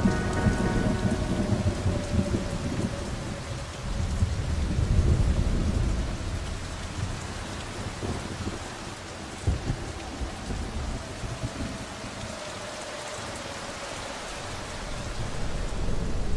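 Steady heavy rain with rolling thunder, the rumbling strongest over the first six seconds and then easing off, with one sharp low thump about nine and a half seconds in.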